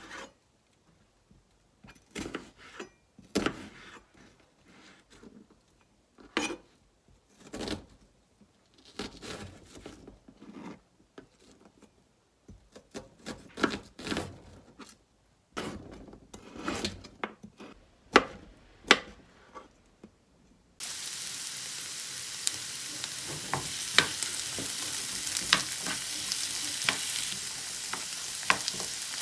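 Scattered knocks and taps of kitchen work, then about 21 seconds in, food starts sizzling in a hot frying pan: a steady hiss with sharp clicks and the clatter of stirring over it.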